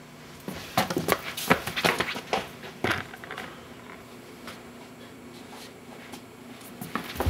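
Footsteps on a hard wooden floor close to the floor-level microphone: a quick flurry of steps and scuffs for a few seconds, a lull, then more steps near the end.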